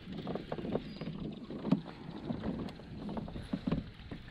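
Small waves lapping and slapping against a plastic fishing kayak's hull, irregular soft knocks over a steady wash of water and wind.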